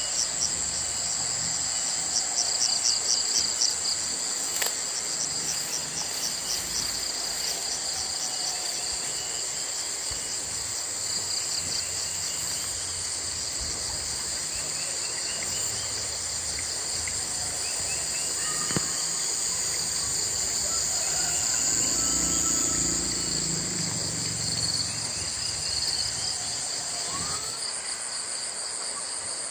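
Dense chorus of insects calling: a fast pulsing trill over a steady high buzz, with a few faint bird calls underneath.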